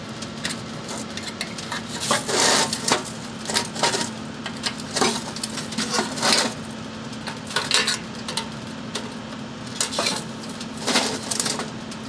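Lid of a metal paint can being pried open with a small metal tool worked around its rim: irregular short metallic clicks and scrapes, one every second or so.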